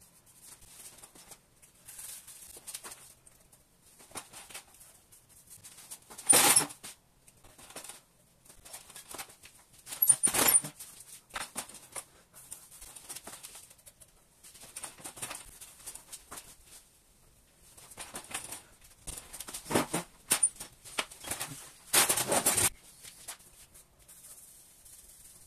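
Intermittent rubbing and scraping strokes of hand work on wood, with louder scrapes about 6, 10, 20 and 22 seconds in.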